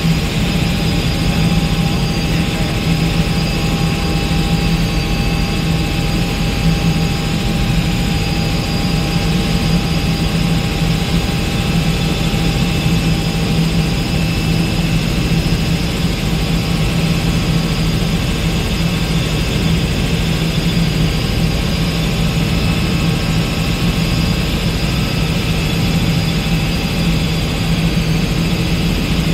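Robinson R66 turbine helicopter in cruising flight, heard from inside the cockpit: a loud, steady drone of rotor and turbine, with a strong low hum and thin, constant higher whines above it.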